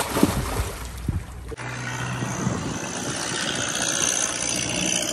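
Splashing water as a swimmer jumps in off a catamaran's stern and strokes away, with a sharp splash just after the start. From about a second and a half in, it gives way to a steady rushing noise of wind aboard the boat.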